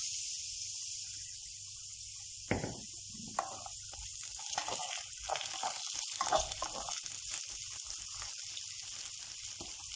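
Sliced potatoes sizzling steadily in hot oil in a granite-coated frying pan. From about two and a half seconds in, a wooden spoon turns them: a knock, then repeated scraping strokes against the pan.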